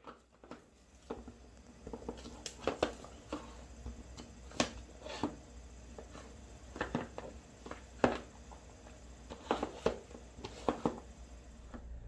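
Irregular soft taps, clicks and short rustles, a few strokes every second or two, in a small enclosed space, with a low steady hum underneath.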